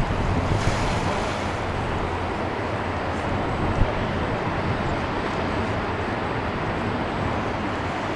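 Boeing 777-300 jet engines at takeoff power during the takeoff roll, heard from a distance as a steady rushing rumble, with wind buffeting the microphone in the first second.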